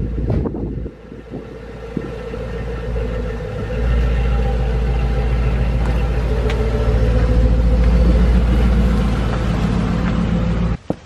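A Chrysler 300's engine running as the car backs out of the garage close past the microphone, a steady low rumble that grows louder about four seconds in and cuts off suddenly near the end.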